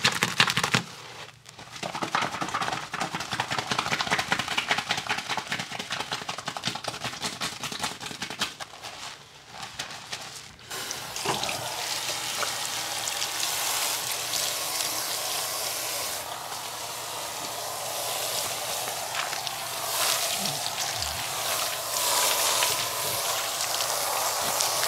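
Fingers scrubbing a thick shampoo lather through wet hair, a fast, wet squelching and crackling of foam. A little under halfway through, this gives way to a steady rush of water running from a salon basin's hand-held shower sprayer as the foam is rinsed out.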